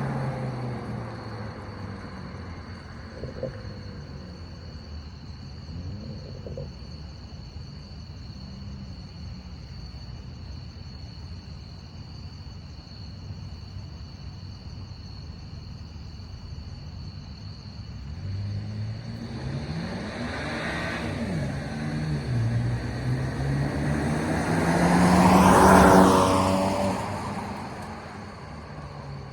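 BMW N54 twin-turbo inline-six running low and steady, then revving up from about two-thirds of the way in to a loud peak near the end and dying away again.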